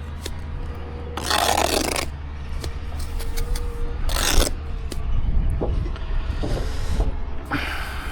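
Mortar being scraped and worked with bricklaying tools: three rough scraping strokes, the first and longest about a second in, with a few sharp clicks, over a steady low hum.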